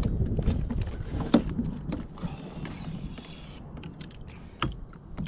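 Water lapping against a kayak's hull as a low rumble, stronger in the first two seconds, with two sharp knocks: one just over a second in, one near the end.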